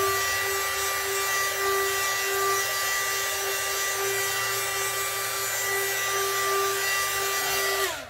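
A mini hot air gun blowing steadily, a rushing fan noise with a high whine. It is switched off near the end, and the whine drops in pitch as it winds down.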